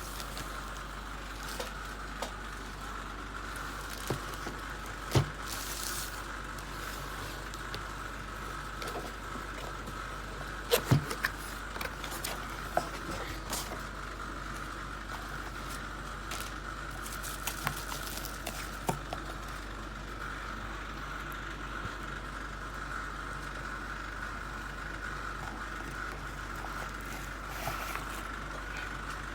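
Scattered sharp clicks and light metallic handling noises, loudest about 5 and 11 seconds in, over a steady faint high-pitched hum.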